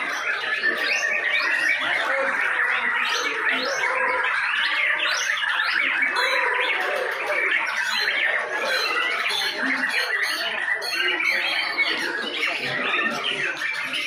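Many caged white-rumped shamas singing at once in contest: a dense, unbroken chorus of rapid whistles, chirps and trills.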